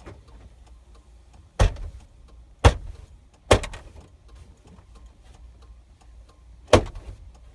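Four sharp knocks and clacks at uneven intervals as a part is forced back into place under a pickup truck's dashboard.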